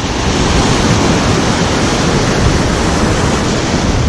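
Surf breaking and washing over a rocky, pebbly shoreline as a steady rush of water, with wind buffeting the microphone.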